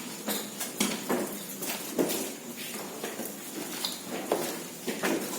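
Footsteps of people walking on a hard floor, about two steps a second.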